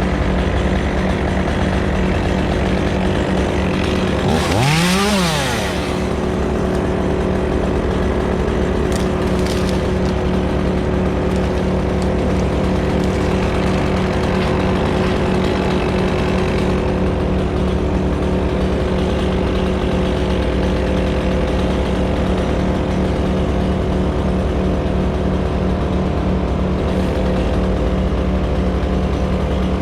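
Stihl chainsaw idling over a steady engine drone, revved up once and back down about four to five seconds in.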